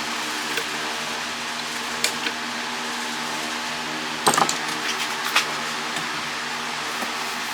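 Steady hum of a running electric fan, with a few metallic clinks and a short clatter of metal parts being handled, the loudest about four seconds in.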